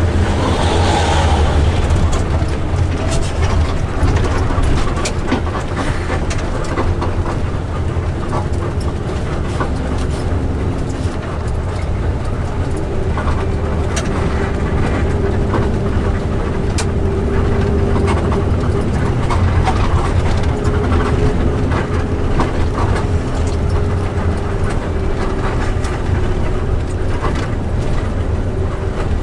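Intercity bus driving: a steady, loud low rumble of engine and road noise, with a drawn-out engine tone through the middle and later part and scattered clicks and rattles.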